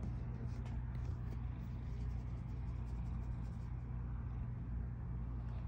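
Domestic cat purring close to the microphone while being stroked: a steady low rumble.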